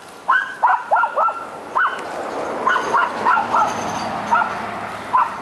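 A dog barking: about ten short barks, several in quick succession in the first second and a half, then more spread out.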